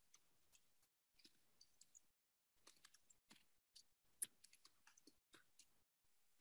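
Computer keyboard keys clicking faintly in quick, irregular runs as someone types, with one sharper click about four seconds in.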